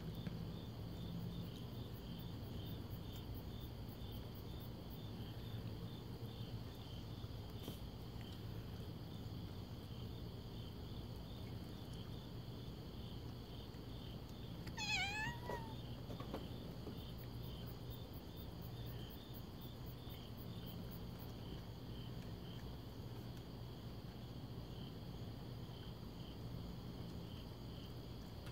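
Crickets chirping in a steady, pulsing chorus, with a domestic cat's single meow about halfway through that is the loudest sound.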